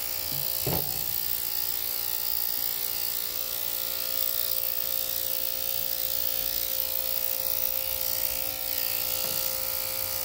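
Corded electric dog-grooming clippers running with a steady buzz as they shave a puppy's body coat.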